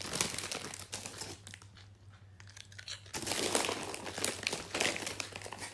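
Foil-lined chips packet crinkling and rustling as it is handled and a hand reaches into it, louder crinkling from about three seconds in.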